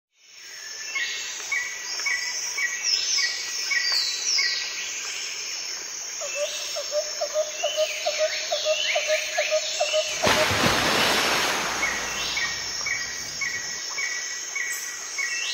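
Nature soundscape of several birds chirping and calling over insect noise, with a lower call repeating about three to four times a second in the middle. A rushing hiss joins in from about ten seconds in.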